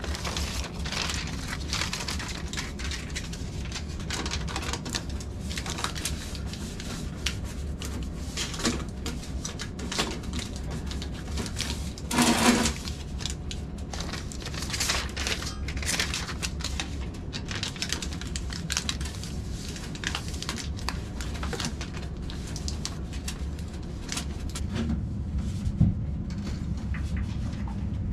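Foil HVAC duct tape being peeled, crinkled and pressed over a sheet-metal duct joint: a steady run of small crackles and light clicks over a constant low hum, with one louder rattle about twelve seconds in.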